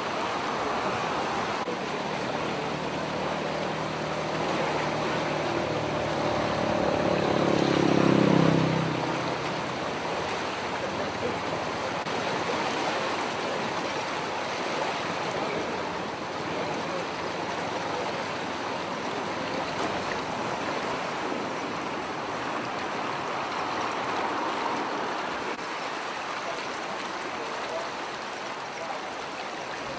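Steady rush of floodwater pouring past a bridge. A vehicle passes close by, its engine note rising and loudest about eight seconds in, then fading.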